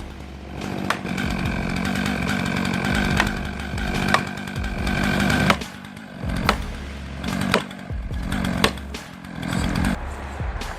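Husqvarna 592 XP chainsaw running steadily and cutting wood. Its note drops away briefly about halfway through and a few more times near the end, picking back up each time.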